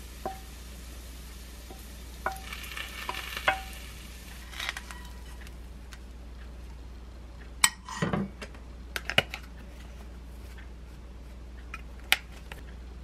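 Wooden spoon scraping fried rice out of a pan onto a ceramic plate, with short knocks and clinks against the plate, some ringing briefly. A louder cluster of knocks comes about eight seconds in.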